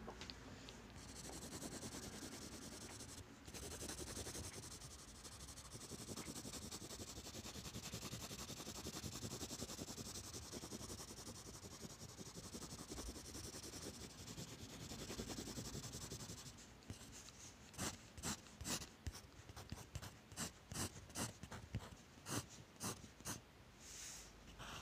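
HB graphite pencil scratching on sketchbook paper: steady back-and-forth shading strokes, then, about two-thirds of the way in, separate short strokes at roughly two a second.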